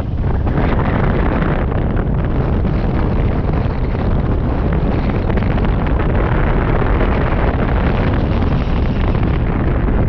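Strong wind rushing and buffeting over a camera microphone on a hang glider in flight, a loud steady rumble of airflow.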